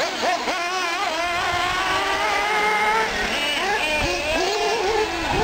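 Several nitro R/C short-course trucks (Associated SC8s) running on a dirt track, their small engines whining and changing pitch as they accelerate and ease off, more than one at a time.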